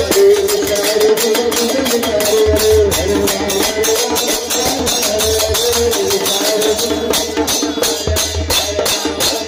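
Harinam sankirtan music: a group chanting to a fast, steady beat of hand cymbals (kartals) and clapping, about four strokes a second.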